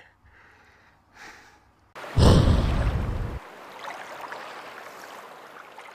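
A logo-ident sound effect: a sudden whoosh with a deep boom about two seconds in. The boom cuts off after a little over a second, and a hiss then fades away slowly.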